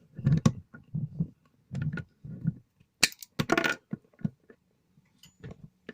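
Cable cutters working on insulated electrical wire: a run of knocks and clicks as the cable and tool are handled, then a longer crunching snip about three seconds in.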